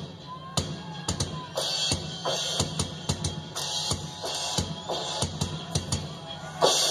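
Live rock drum kit solo: irregular bass drum and snare hits broken by cymbal crashes, with a heavy crash hit near the end.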